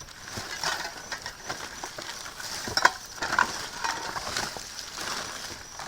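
Plastic bags and packaging rustling and crinkling irregularly as someone rummages through trash, with a sharper crackle about three seconds in.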